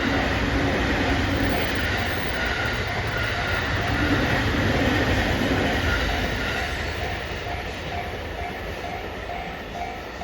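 Container flatcars of a long freight train rolling past over the rails, loud at first and easing off after about six seconds. A level-crossing warning bell rings throughout, about two strokes a second, heard more plainly as the train noise fades.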